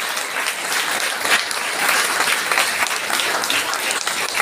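An audience applauding, many hands clapping together in a dense, steady patter.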